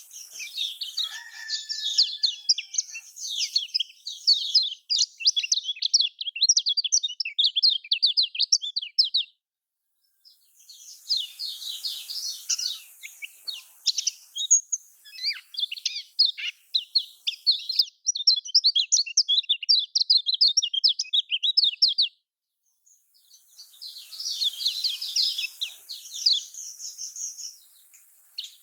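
Kecial kuning (a Lombok white-eye) singing a long, rapid, high-pitched chattering song in three bursts of quick sweeping notes, with short pauses between. A pancingan (lure) song used to provoke a silent kecial kuning into singing.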